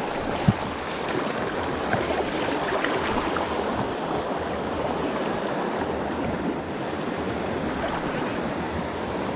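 Shallow creek water rushing steadily over a riffle around a kayak, with a single knock about half a second in.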